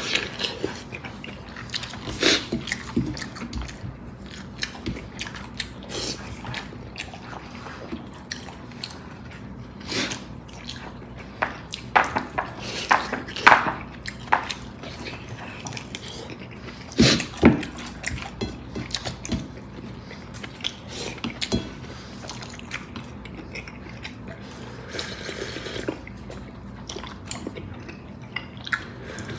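Eating bulalo, beef bone-marrow soup: slurps of broth and chewing in scattered bursts, with occasional sharp clicks of cutlery against the bowl.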